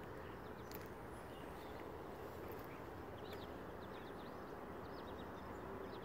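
Faint outdoor ambience: a steady low hiss of background noise with a few faint, distant bird chirps.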